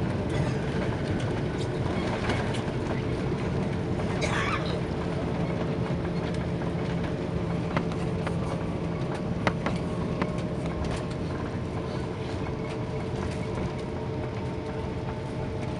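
Airbus A330-300 cabin noise as the airliner rolls along the runway after touchdown: a steady rumble with scattered clicks and knocks, easing slowly as the aircraft slows.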